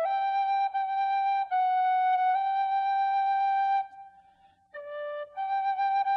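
Background music: a flute-like wind instrument playing slow, long held notes, with a break of about a second midway.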